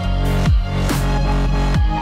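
Electronic dance music in a dubstep style: sustained deep bass and synth tones, with heavy kick drums that fall in pitch, about one a second.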